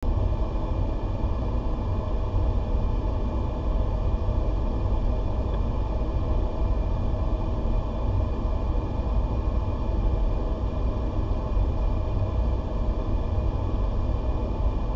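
Steady low rumble and hiss of a laminar flow cabinet's blower running, with faint steady tones over it.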